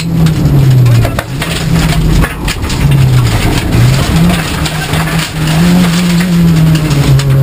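Rally car engine heard from inside the cabin, pulling hard along a gravel stage, its note rising and dropping several times as the driver shifts and lifts. Gravel and stones rattle under the car throughout.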